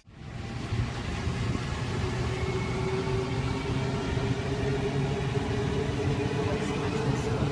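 Steady rumble and hum of a metro train running, heard from inside the carriage, with a faint steady whine under the rumble.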